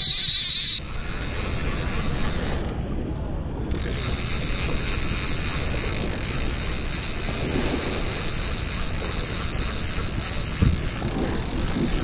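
Okuma Convector CV 45L conventional reel buzzing steadily under load while reeling against a heavy fish. The buzz drops out for about a second roughly three seconds in, then carries on.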